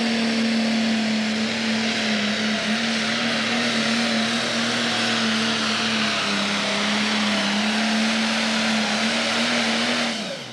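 Pro Stock pulling tractor's diesel engine running flat out under load as it drags the weight sled, a steady loud drone. Its pitch sags briefly about six seconds in and then recovers. Near the end the engine is shut down at the end of the pull and winds down quickly.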